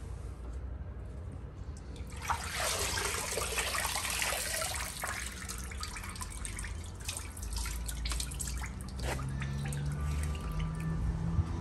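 Evapo-Rust rust-remover bath sloshing and pouring off as a plastic basket holding a cast iron cornbread pan is lifted out of the tub, about two seconds in. Drips then patter back into the bath.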